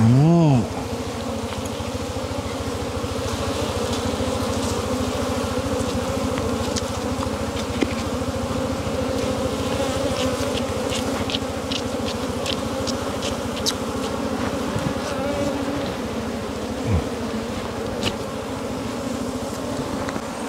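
A dense mass of wild honeybees buzzing steadily around their opened nest. A short, loud voice-like cry that rises and falls comes at the very start, and light sharp clicks come about halfway through.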